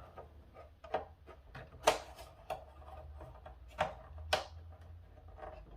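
Hard plastic toy parts clicking and knocking as the trap net's posts are worked into their sockets, a handful of separate clicks with the sharpest about two seconds in.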